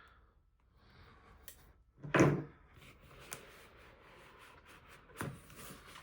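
A cardboard product box being opened and handled: rustling and rubbing, with a louder short scrape about two seconds in and another near the end.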